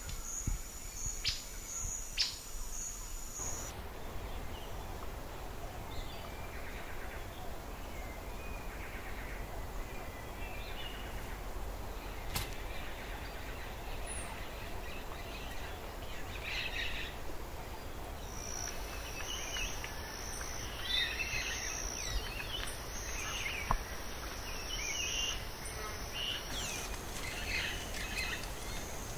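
Tropical forest ambience: a high insect drone, pulsing at first and steady later, with scattered short bird chirps and calls. The sound changes abruptly a few times, at the edits between clips.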